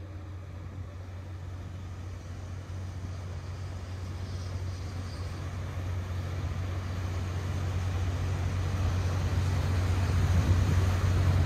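Paddle steamer passing close by: a steady low engine hum with the churn of its paddle wheel in the water, growing gradually louder as it draws nearer.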